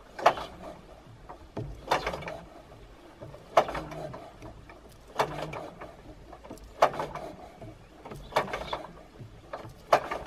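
de Havilland Tiger Moth's Gipsy Major engine being turned over by hand at the propeller, with a sharp metallic snap about every second and a half, seven times: the magneto impulse coupling releasing as each cylinder is pulled through before a hand-swing start.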